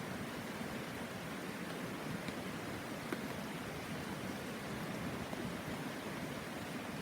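Steady murmur of a shallow mountain river, with a few faint ticks.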